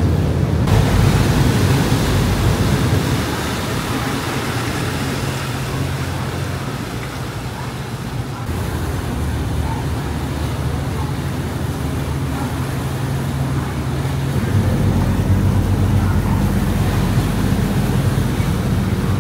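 Catamaran ferry's diesel engines running steadily as it pulls away from the pier, with its propellers churning the water astern. The low engine drone grows stronger about three-quarters of the way through.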